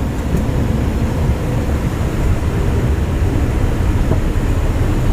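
Steady low rumble of a passenger jet airliner, running evenly with no distinct events.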